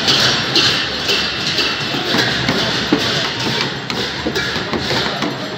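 Newar dhimay barrel drums beaten together with large brass hand cymbals in a festival procession: a loud, dense clatter with cymbal clashes recurring steadily, about every half second.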